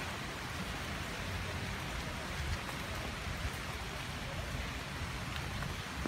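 Steady rain falling, with a few faint ticks of single drops.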